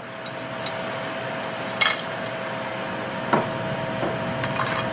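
Kitchenware clatter around a frying pan: one sharp clink about two seconds in and a few light knocks near the end, over a steady hiss with a faint hum.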